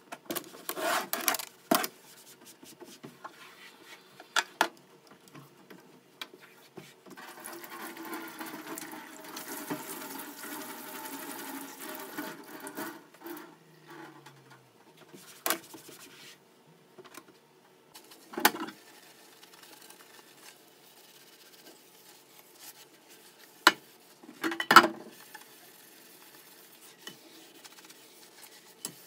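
Washing up at a stainless-steel sink: a stretch of rubbing and scrubbing lasting several seconds, with scattered knocks and clatters of dishes and a pan against the sink.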